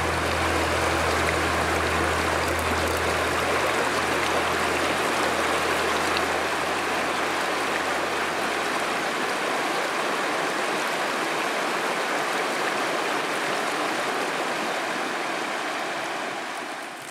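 Rushing water of a shallow, rocky river running over stones: a steady rush that drops away right at the end.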